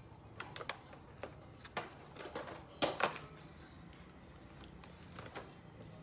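A few scattered clicks and light knocks of a clear plastic food container and a woven tray being handled on a table. The loudest is a quick pair about three seconds in.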